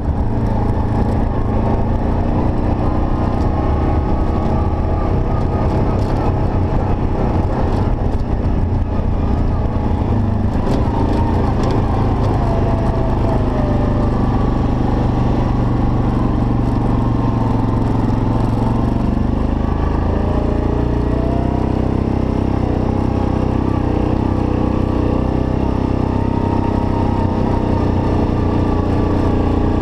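ATV engine running steadily while riding a dirt trail, heard close from the quad itself; its pitch shifts a little now and then.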